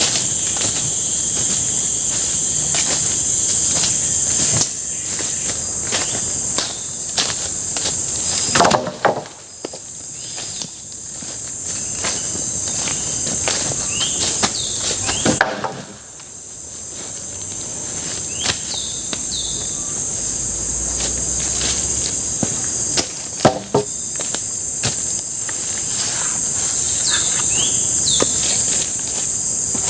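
Forest insects shrilling steadily in high-pitched bands, cutting off suddenly twice and building back, with scattered sharp knocks like wood being struck.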